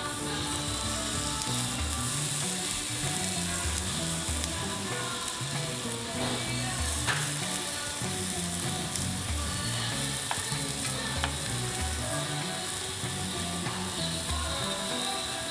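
Pork belly sizzling and frying on a hot Korean barbecue grill: a steady crackling hiss with occasional sharper pops.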